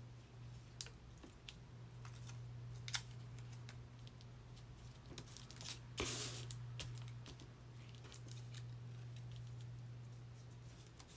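Paper handling: scraps of magazine paper being moved and pressed down on a journal page, with light rustles and taps and a short louder crinkle of paper about six seconds in, over a low steady hum.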